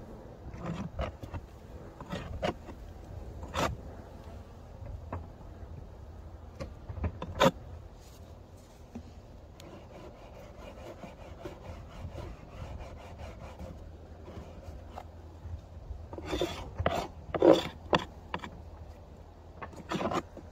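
Irregular scraping and knocking, with a run of louder scrapes near the end.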